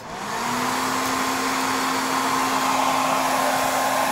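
Handheld hair dryer switched on and running: a steady blowing rush with a steady hum, rising briefly in pitch as the motor spins up at the start.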